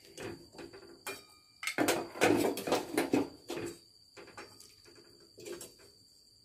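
Metal spoon and utensils clinking and scraping against a pan and dishes as the freshly cooked egg curry is served, a run of irregular clatters that is loudest about two to three seconds in. A faint steady high whine runs underneath.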